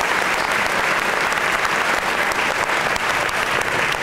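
Sustained applause from a large seated audience, many hands clapping at once in a dense, steady patter that echoes in a large hall.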